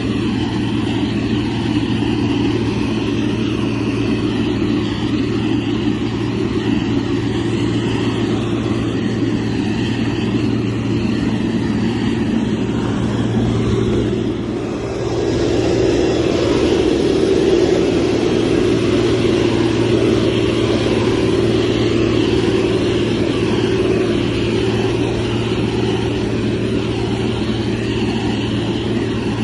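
Heavy diesel engine of a motor grader running steadily under load. It dips briefly about halfway through, then comes back a little louder.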